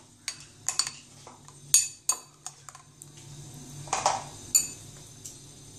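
Metal spoon stirring yogurt raita in a glass bowl, clinking and scraping against the glass in a string of irregular clicks, the sharpest a little under two seconds in.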